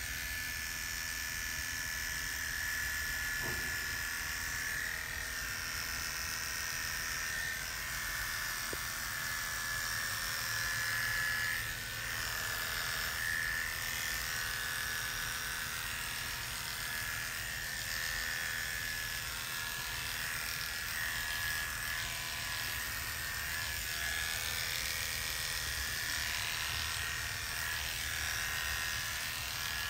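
Electric hair clippers buzzing steadily as they shave a patient's head down to the scalp.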